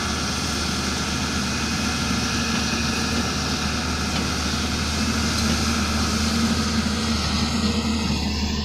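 Diesel engine of a construction machine (backhoe loader or excavator) running steadily at a constant pace.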